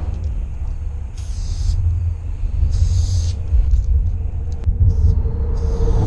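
Aerosol spray paint can hissing in several short bursts, each about half a second, over a steady low rumble.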